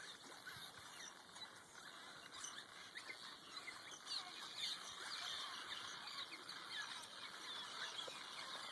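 A swarm of small birds chirping faintly, many short high calls overlapping.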